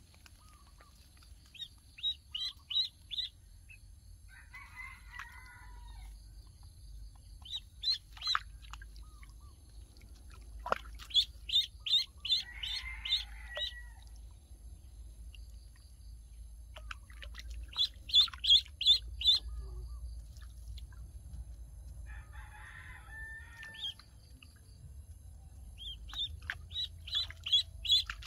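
A duckling peeping in bursts of four to six quick, high chirps, repeated every few seconds.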